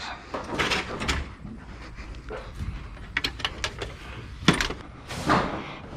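Scattered knocks, clatter and rattles of junk being handled and carried, with a sharper knock about four and a half seconds in.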